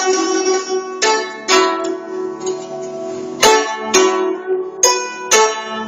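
Guzheng played solo with fingerpicks: plucked notes, several in quick pairs, each ringing on and overlapping the next.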